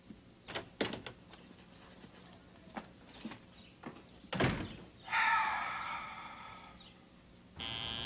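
A wooden door being handled, with a few latch clicks, then shut with a thud about four and a half seconds in. A short held musical tone follows and fades. Near the end a tattoo machine starts buzzing.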